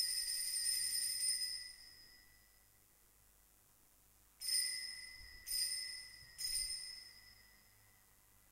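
Altar bell rung at the elevation of the consecrated host. A ringing fades out in the first two seconds, then comes three separate rings about a second apart, each dying away.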